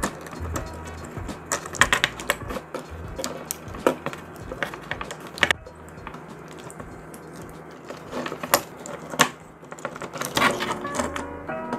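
Joints and parts of a BMB LS-03 Optimus Prime transforming figure clicking and clacking as they are folded and pressed into place during the change to truck mode, in irregular sharp clicks. Background music plays underneath.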